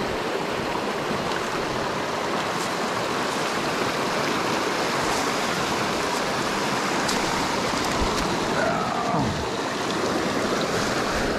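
Small mountain trout stream running steadily over rocks, a continuous rushing of water close by.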